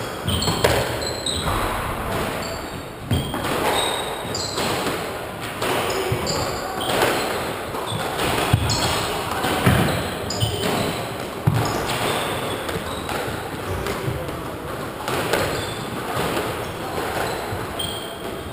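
Squash rally: the ball is struck by rackets and smacks off the walls again and again. Sneakers squeak and feet thud on the wooden court floor.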